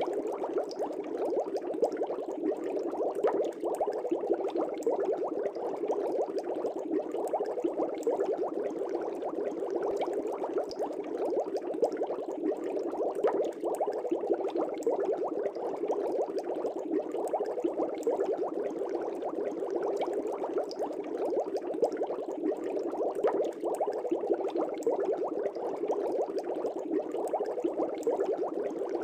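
Aquarium air bubbles rising and breaking at the water surface in a steady, dense burble with fine crackling pops.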